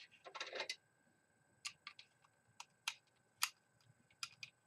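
Faint, scattered sharp clicks and light taps, about a dozen, of small plastic and metal parts being handled: an 80 mm CPU cooler fan taken off its heatsink, with a short rustle about half a second in.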